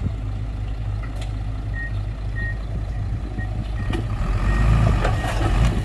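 Diesel engine of heavy earthmoving equipment running with a steady low rumble while a reversing alarm beeps at an even pace, signalling the machine is backing up. Near the end the engine works harder and there are a few metallic clanks.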